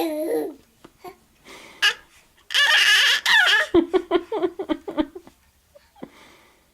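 Young child vocalizing: a short wavering cry, a loud shrill squeal, then a quick run of giggling laughter.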